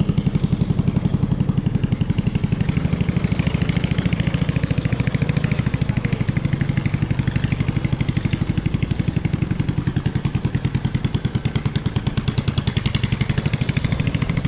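Small single boat engine driving a wooden longboat upriver, running steadily with a fast, even putter.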